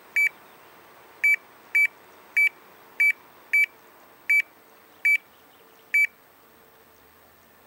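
Air conditioner indoor unit's control-board beeper giving nine short, high beeps, one for each remote-control command it receives as the set temperature is stepped up. The beeps come about half a second to a second apart and stop about six seconds in.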